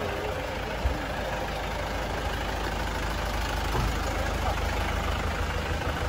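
Mahindra Bolero jeep engines idling with a steady low rumble, with one short thump about a second in.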